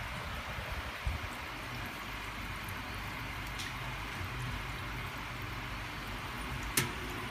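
Steady hiss over a low rumble, with a faint tick about halfway through and a sharp click near the end.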